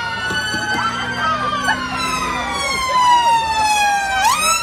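Police car siren on a Ford Mondeo Estate, wailing: a long tone that falls slowly in pitch for about four seconds, then sweeps quickly back up near the end.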